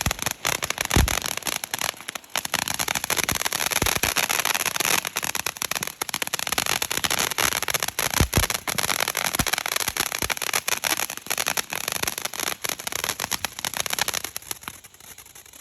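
Three Winda Snow Cone Jr. firework fountains burning together: a dense, steady hiss full of crackling, with a few stronger pops. The sound dies down near the end as the fountains burn out.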